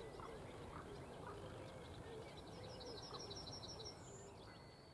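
Songbirds singing faintly over low outdoor background noise, with a fast run of short high repeated notes, about eight a second, in the second half.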